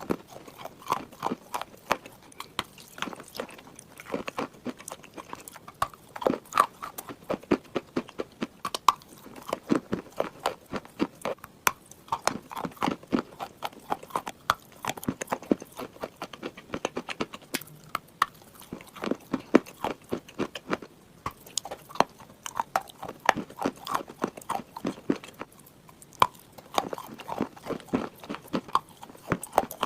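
Close-up chewing and crunching of clay chunks: a person biting and grinding them between the teeth, a steady run of irregular sharp crunches and clicks.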